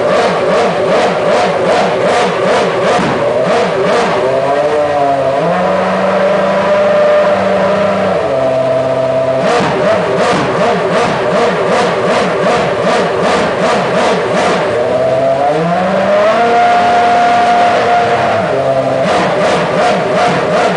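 2.4-litre Toyota V8 of a Williams FW29 Formula One car, revved on the throttle with the car at a standstill: quick repeated blips of the throttle, with the revs twice rising and held steady for two or three seconds, about six seconds in and again near sixteen seconds.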